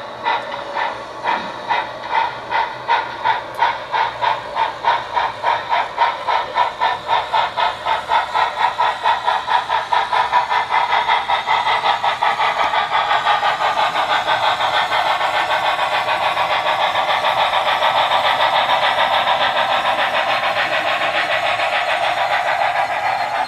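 Sound-equipped model of a D&RGW L-131 2-8-8-2 steam locomotive chuffing as it pulls away with a passenger train, the chuffs quickening from about two a second until they run together into a steady rush.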